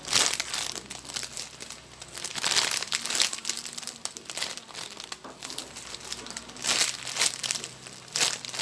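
Clear plastic bag around a foam ice-cream-cone squishy crinkling in repeated rustles as it is squeezed and turned in the hands.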